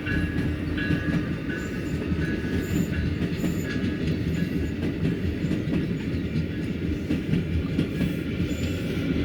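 Amtrak Wolverine passenger train rolling by, a steady rumble of wheels on the rails.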